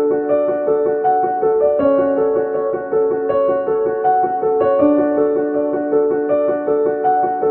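Background music: a keyboard plays a repeating pattern of notes, about three a second, over held lower notes.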